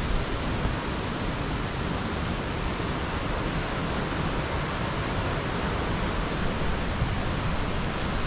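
Steady, even rushing of river water.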